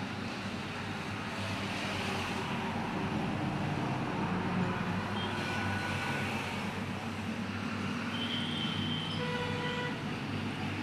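Steady rumble of passing road traffic, with a few brief high tones about two thirds of the way through and near the end.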